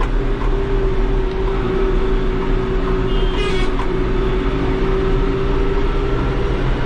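New Holland TD75 diesel tractor engine running steadily under load, heard from inside the cab, with a steady whine that the owner calls its turbo sound under load. A brief high-pitched tone sounds about three seconds in as another tractor passes.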